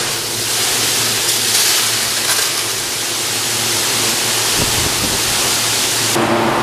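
High-pressure water jets from a Christ Varius car wash's spray arm hissing loudly and steadily as they blast the car. Near the end the hiss cuts off suddenly, leaving a steady machine hum.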